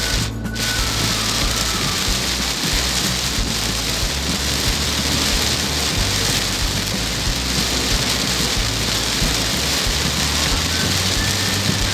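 Heavy rain beating on a moving car, heard from inside as a steady, loud hiss.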